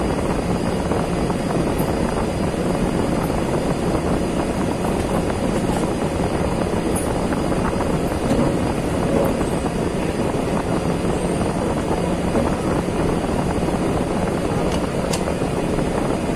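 Steady droning machine noise, with a few faint clicks near the end.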